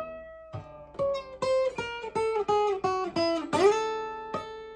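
Acoustic guitar played solo: a run of single picked notes, about four a second, then a louder chord about three and a half seconds in that rings out and fades.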